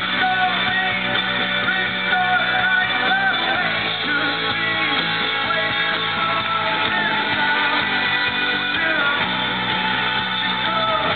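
Indie rock band playing live: guitars and singing at a steady, full level. The sound is thin and muffled, with no highs, as in a low-quality recording.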